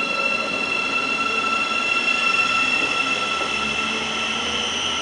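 Electric passenger train running through the station: a steady high-pitched whine with several overtones over the rumble of the train.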